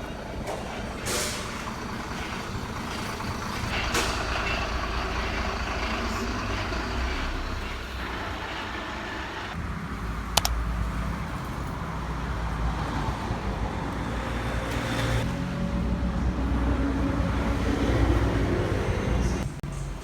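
Road traffic: vehicle engines running with a low rumble that swells and fades, and a sharp click about ten seconds in.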